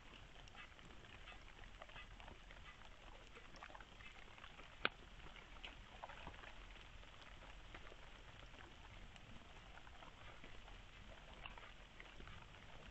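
Faint, irregular small clicks and crackles of a red fox foraging and chewing food on the ground, with one sharper click about five seconds in, over a low steady hiss.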